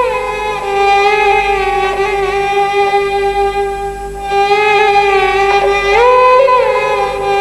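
Background score music: a slow melody over a steady held drone, sliding up to a higher note near the start and again about six seconds in.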